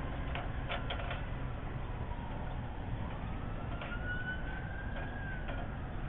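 Steady low rumble of road traffic with a faint siren wail that slowly rises in pitch and then falls away in the second half. A few light ticks about a second in.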